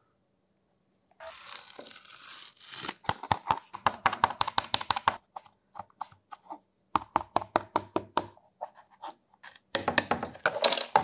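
Fingers scraping and rubbing over the rough, melted-in weld seam of a hard plastic tray, with the tray being handled: starting about a second in, a scratchy rasp and then quick runs of sharp clicks and knocks.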